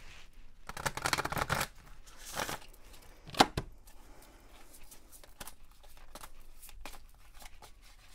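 Large oracle card deck being hand-shuffled, with a burst of card-on-card rustling about a second in, another near the middle, and light flicking and clicking of cards throughout. One sharp click about three and a half seconds in is the loudest sound.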